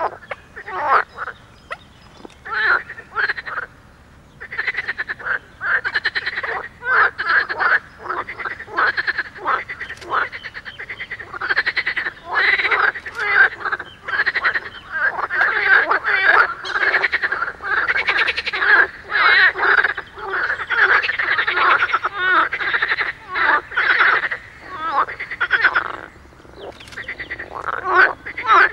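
A chorus of frogs croaking in a pond: many rapid, overlapping calls. It thins out briefly about three seconds in and again near the end, and is otherwise near-continuous.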